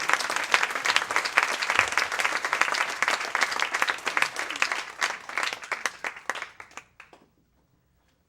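Audience applauding, dense clapping that thins out and dies away about seven seconds in.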